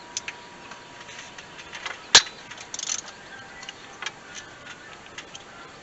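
Scattered light metallic clicks and clinks of hand tools and small metal parts being handled, with one sharp metal click about two seconds in.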